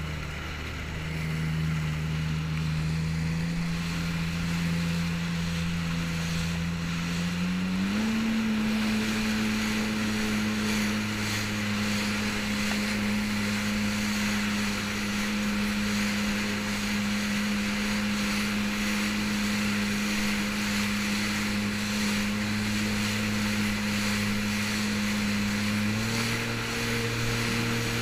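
Jet ski engine running under way with a steady rushing noise of wind and water. Its pitch climbs in the first second or two, steps up about eight seconds in, holds steady, and steps up slightly again near the end as the throttle is opened further.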